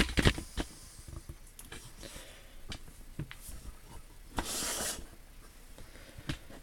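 An old metal hand tool being handled on a workbench: two sharp knocks at the start, then scattered light clicks, with a short hiss about four and a half seconds in.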